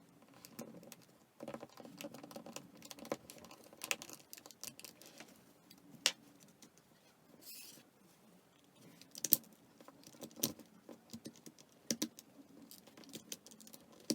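Plastic back housing of a Samsung C3590 flip phone being pried off by hand: irregular light clicks and scraping of plastic on plastic, with a few sharper snaps about six, nine and ten seconds in.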